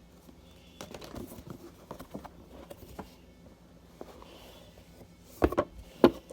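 A cardboard gift box and its packaging being handled and opened: scattered light taps and rustling, then two sharp knocks about half a second apart near the end.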